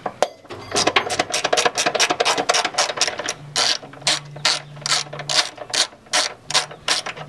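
Hand socket ratchet clicking rapidly, about six clicks a second, as a just-loosened upper control arm bolt is run out of the front suspension.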